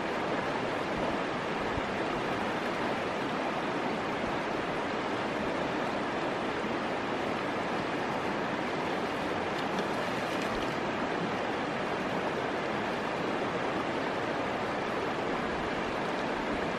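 Shallow, rocky river flowing steadily: an even rush of water over stones.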